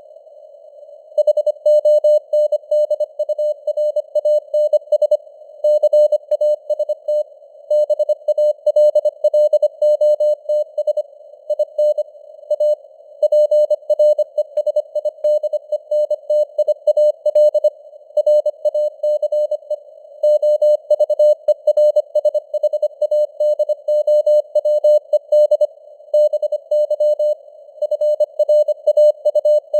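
Morse code (CW) sent at 25 words per minute: a single steady tone keyed on and off in rapid dots and dashes, with short pauses between words. Behind it runs a narrow band of simulated radio hiss around the same pitch.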